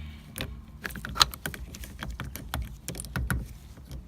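Irregular metallic clicks and clinks of hand tools and bolts being handled while working on a steering wheel hub, about a dozen sharp taps spread unevenly, with one loud click about a second in.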